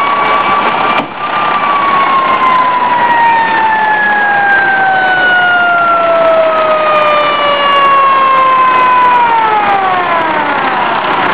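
Fire engine siren sounding one long tone that slides slowly down in pitch, then falls away faster near the end as it winds down.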